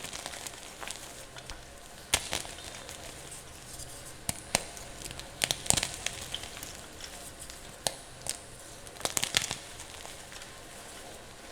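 Chalk being crushed and crumbled: sharp crunches and crackles at irregular intervals, some in quick pairs, over a steady faint hiss.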